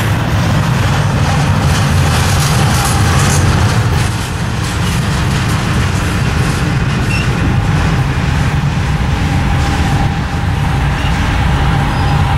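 Double-stack intermodal well cars of a freight train rolling past on jointed rail: a steady loud rumble of steel wheels on the rails. A faint, steady high squeal joins about halfway through.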